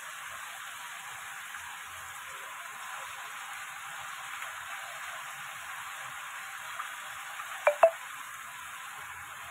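Steady sizzling hiss from a steel kadai of chopped fenugreek, spinach and dill leaves cooking down, with two sharp clicks close together about three-quarters of the way through.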